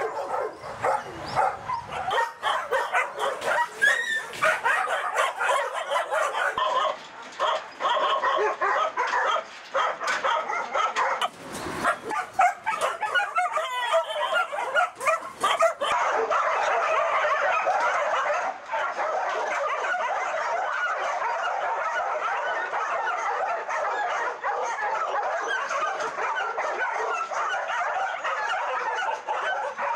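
A chorus of many caged dogs barking. The barks are separate and sharp at first, then from about halfway they merge into a dense, unbroken din.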